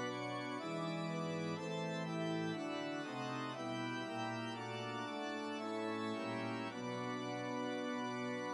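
Background music: a keyboard tune with an organ-like sound, playing held chords that change every second or so.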